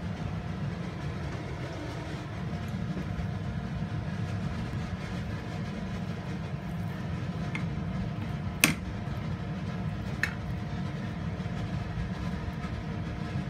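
Steady low rumble of background noise, with a sharp knock about nine seconds in and a lighter one a second and a half later, from the cleaver and pork on a wooden cutting board.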